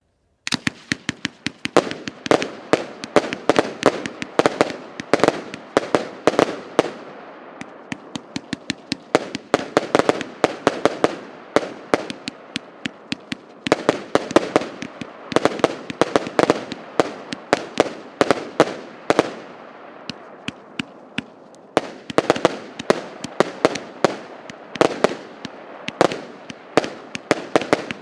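Multi-shot consumer fireworks battery (the 'Праздничный салют' PC 6980) firing. It begins abruptly about half a second in, then keeps up a rapid run of sharp bangs, several a second, in louder and softer clusters.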